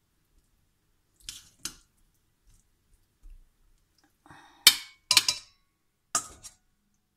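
A metal fork scraping and clinking against a stainless steel bowl as marinated chicken pieces are lifted out. It comes in a few short bursts: two light ones, then the sharpest clinks about four and a half to five seconds in, and one more near the end.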